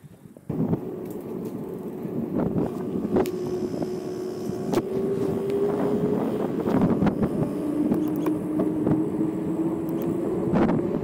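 Bicycle riding on asphalt, heard from a camera mounted on the bike. Starting suddenly about half a second in, a steady rolling noise with a droning hum that drifts slowly up and down in pitch, scattered clicks and rattles, and some wind on the microphone.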